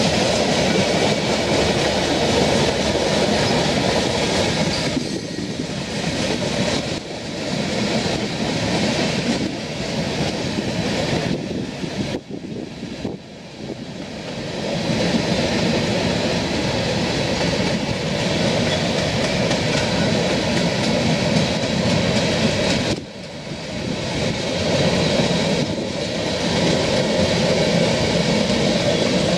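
Freight train cars, mostly tank cars and covered hoppers, rolling past with steel wheels running on the rails: a loud, steady rumble and rattle that dips briefly a few times.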